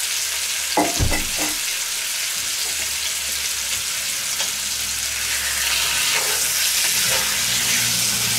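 Chicken pieces sizzling in hot oil in a cast-iron Dutch oven, with one knock about a second in. Near the end, a wooden spatula stirs and spreads the meat in the pot.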